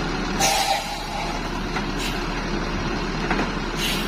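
Sound effect of a large bus engine running steadily, with sharp hisses of air-brake air released about half a second in and again near the end as the bus pulls up and stops.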